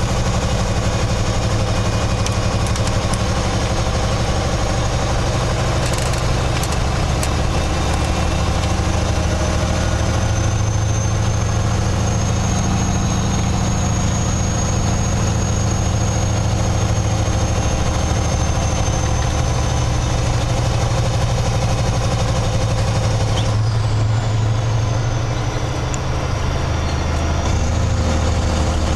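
A Kenworth tractor's diesel engine running steadily under way, heard from inside the cab. A faint high whine rises and holds through the middle. About three-quarters of the way through the engine note changes.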